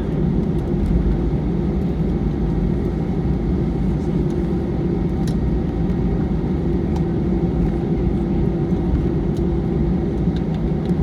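Steady drone of an Airbus A320's engines and air systems heard from inside the passenger cabin, with a steady low hum and a few faint ticks.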